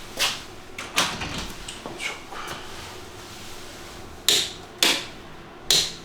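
A run of sharp knocks and clanks at uneven spacing, from objects being handled and set down. The three loudest come near the end, about half a second to a second and a half apart.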